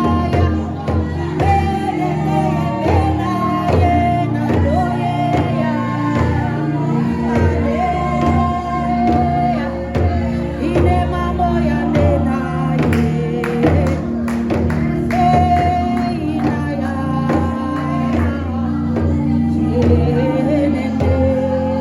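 Gospel music: voices singing over a steady instrumental accompaniment.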